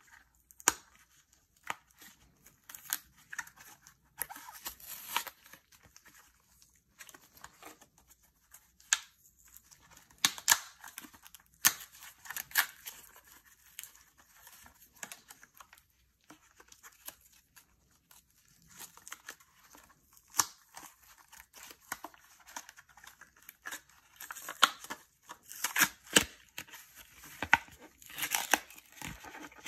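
Cardboard backing of a plastic blister pack being torn off by hand in irregular rips and crackles with short pauses, the clear plastic blister crinkling as it is pulled free.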